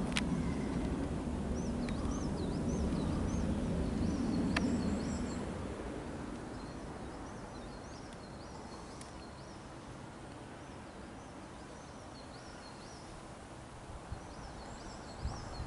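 Low rumble of an Airbus A340-600's four Rolls-Royce Trent 500 turbofans as it climbs away overhead, fading out after about five seconds. Small birds chirp repeatedly throughout.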